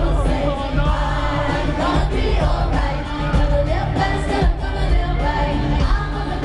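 A woman singing a pop song live into a microphone, backed by an amplified band, heard through a stadium sound system from the audience.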